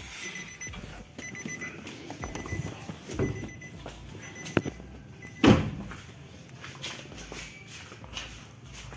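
A Nissan Navara NP300's warning chime beeping in short runs of rapid beeps through the first few seconds, then a loud thump about five and a half seconds in as the car's door is shut.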